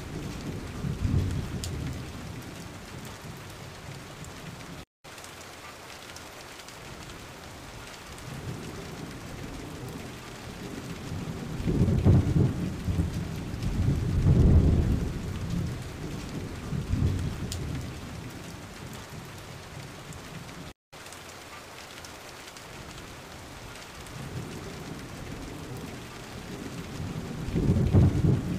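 Steady rain with several low, slow rolls of thunder, the strongest in the middle and near the end; the sound drops out for an instant twice.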